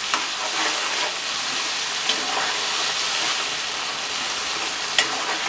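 Sauce-coated onion, capsicum and garlic sizzling steadily in oil in a steel pan over high heat while a steel ladle stirs them. Two sharp clicks of the ladle against the pan, one just after the start and one near the end.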